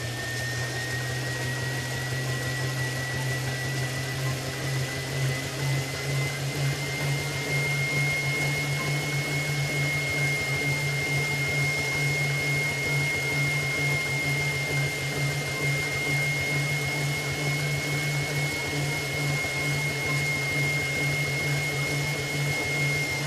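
Road bike spinning on an indoor trainer: a steady mechanical whine that rises a little in pitch over the first several seconds and then holds, over a low hum.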